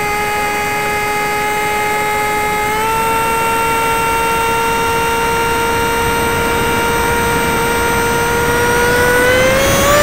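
Talon RC plane's motor and propeller whining steadily in flight. The pitch steps up a little about three seconds in and rises again near the end as the throttle is opened, over rushing air.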